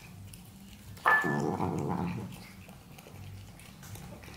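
A cat growls once at the food bowls, starting suddenly about a second in and lasting about a second.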